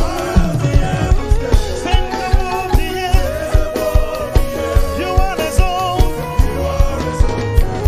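Live gospel band playing a fast, steady drum beat, about four beats a second, while a man sings praise into a microphone, his voice wavering in pitch.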